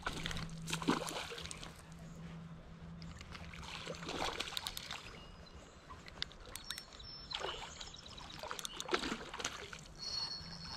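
Water splashing and sloshing in several separate bursts as a hooked smallmouth bass jumps and thrashes at the surface of a shallow river while being played on a spinning rod.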